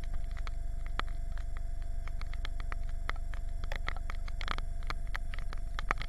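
Storm wind rumbling on the microphone over lake water, with many irregular sharp ticks of raindrops and water splashing close by and one louder rush of water just past the middle. A faint steady whine runs underneath.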